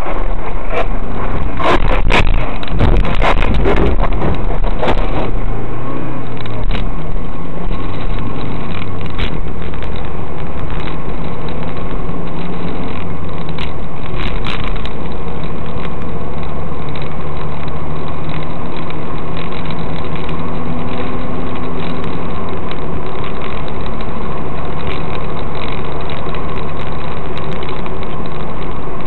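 Car engine running, picked up by a dash cam inside the cabin. Several loud knocks and rattles come in the first few seconds, then the engine settles into a steady hum.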